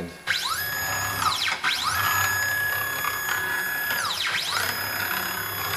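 STEPCRAFT CNC router's X-axis stepper motor running the axis in fast jogs at 6,000 mm/min, three times. Each time it makes a whine that rises in pitch as the axis accelerates, holds steady at full speed, then falls as the axis slows to a stop.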